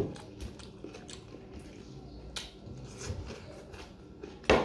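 Close-up eating sounds: chewing with many small wet clicks, and fingers mixing rice against a steel plate, with a sharp louder knock at the very start and again near the end.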